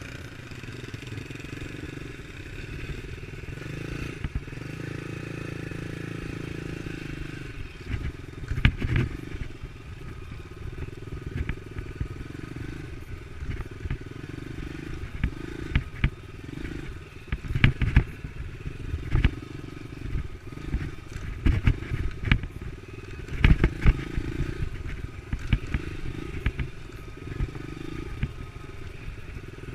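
Dirt-bike engine running at a steady pace, with sharp knocks and clatter from the bike jolting over a bumpy trail.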